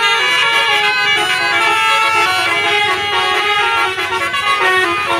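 Bus 'telolet' multi-tone air horn playing a melody, several tones sounding together and stepping from note to note without a break.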